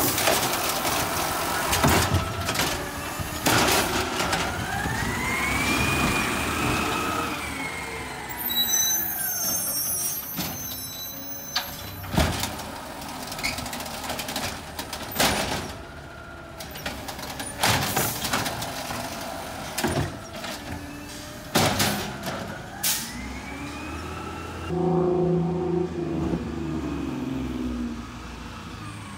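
Automated side-loader garbage truck at work: its engine and hydraulics rise and fall in pitch twice as the arm cycles, with a steady low engine rumble beneath. Sharp bangs and knocks come at irregular moments throughout, from the bins and the arm.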